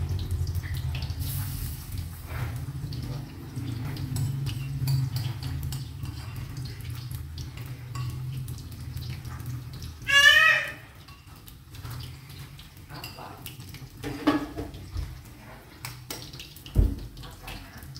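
Kitchen clatter: a utensil tapping and clinking against a bowl in quick light strokes while cooking at the stove, over a low steady hum that fades about halfway through. A short high-pitched call sounds about ten seconds in, and there is a dull thump near the end.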